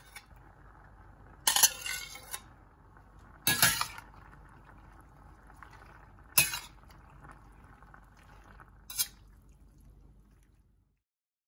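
Metal spatula scraping and clinking against a plate and a stainless steel frying pan as mozzarella is pushed in and stirred through pasta: five separate clatters a second or two apart, the loudest in the first four seconds.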